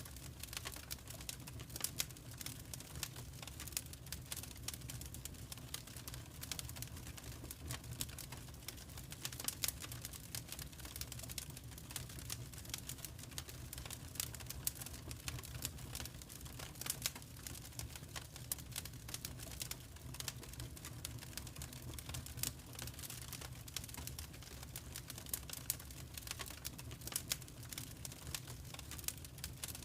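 Fireplace fire crackling: a constant stream of small irregular pops and snaps over a steady low rumble.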